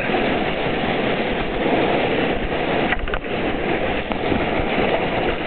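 Whitewater rushing and splashing close around an inflatable kayak as it runs through a rapid: a loud, steady wash of water noise.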